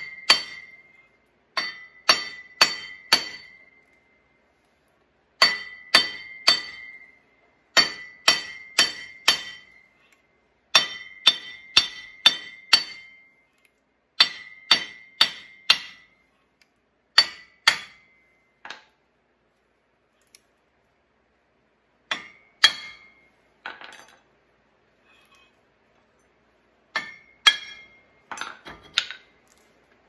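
Hammer blows on the steel dually hub extension of a Ford Super Duty's front hub, knocking the stuck part loose. The strikes come in quick runs of three to five, each with a short metallic ring, with pauses between runs. Near the end the blows grow sparser and fainter.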